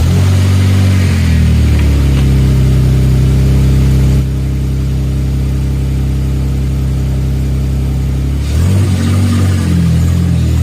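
Car engine running steadily just after being started, with its note changing and wavering near the end.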